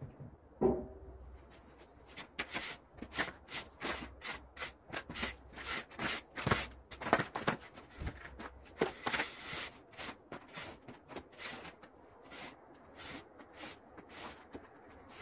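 A knock just under a second in, then a push broom sweeping snow off paving stones: quick scraping swishes at about two strokes a second.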